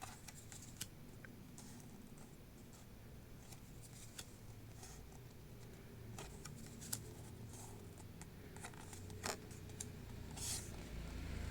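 Handling of trading-card packaging and cards: scattered light clicks, taps and rustles, with a short scraping rustle near the end.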